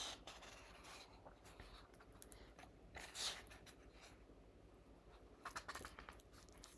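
Pages of a hardcover book being turned: a few faint papery rustles, the loudest about three seconds in.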